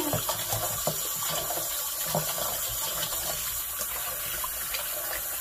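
Kitchen tap running steadily into a basin of water while raw chicken pieces are washed by hand, the hands sloshing and rubbing the meat in the water.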